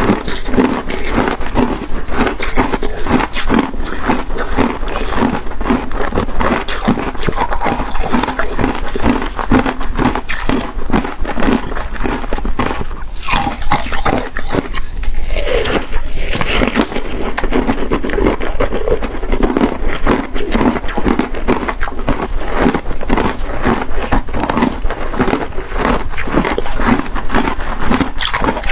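Close-miked chewing of crunchy shaved ice: dense crackling crunches in a steady chewing rhythm of about two chews a second.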